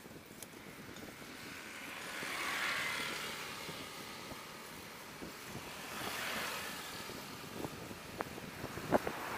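Wind and road noise on a motorcycle rider's camera while riding along a paved road, swelling twice. A few sharp knocks near the end.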